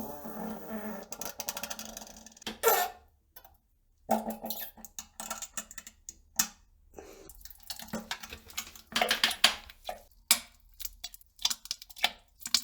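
Fart sounds: a drawn-out, fluttering fart over the first couple of seconds, then a series of short, irregular farts and splutters with brief silences between.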